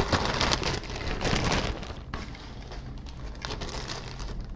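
Clear plastic bag crinkling and rustling as a plastic model-kit part is handled. Loudest for the first second and a half, then softer.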